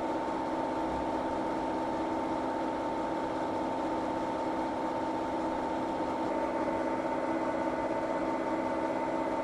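Milling machine running a light spring pass on an aluminum plate: a steady machine hum with several constant tones and the rough, even sound of the cutter in the cut, which grows a little stronger about six seconds in.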